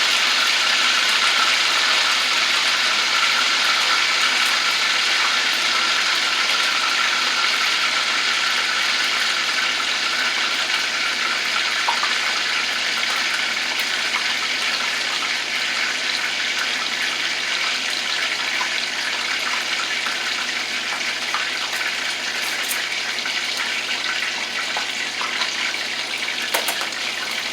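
Chicken pieces sizzling steadily in hot oil in a frying pan, with a few faint pops, slowly easing off a little.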